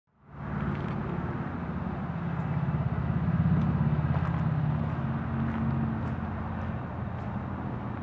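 An engine running steadily with a low, pulsing hum that grows somewhat louder about halfway through.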